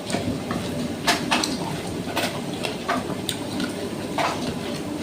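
Tableware clinking during a meal: a handful of light clinks and taps of plate and utensils, spread over a few seconds, against a steady background noise.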